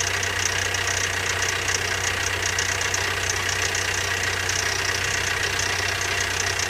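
Toyota 22RE 2.4-litre four-cylinder engine idling steadily with a fast metallic ticking rattle over it, which the owner puts down to a timing chain with a lot of slack; it sounds worse as the engine warms.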